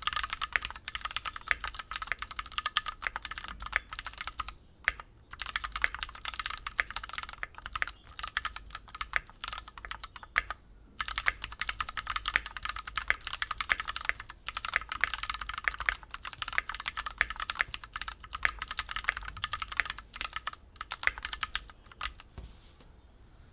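Typing on a Keychron Q3 mechanical keyboard with factory-lubed Gateron G Pro Brown tactile switches: a fast, continuous run of keystrokes, broken by short pauses about five seconds in, about eleven seconds in, and just before the end.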